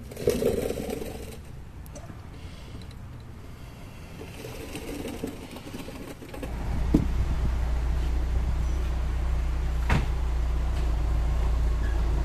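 A knock and faint handling noises under the car, then from about halfway a Pontiac Sunfire's four-cylinder engine idling steadily with its exhaust newly refitted, with a couple of sharp clicks over it.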